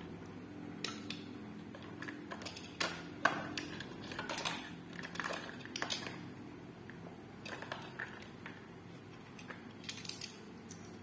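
Small hard plastic toys clicking and knocking as they are handled and set down: Thomas minis engines placed on plastic track and a plastic toy excavator moved about. The taps come irregularly, singly and in short clusters, at a low level.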